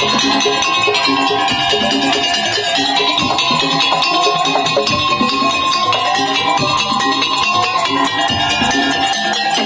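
Madurese tongtong ensemble music: rhythmic percussion repeating a steady pattern under a long-held high melody line.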